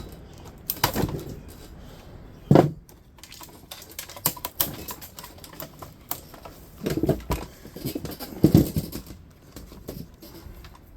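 Hand tools and metal parts of a dehumidifier being handled during dismantling: irregular clicks and clatter, a sharp knock a couple of seconds in, and bursts of rattling near the end.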